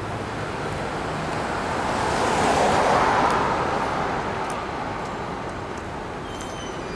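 Street traffic: a vehicle passes, its noise swelling to a peak about three seconds in and fading away.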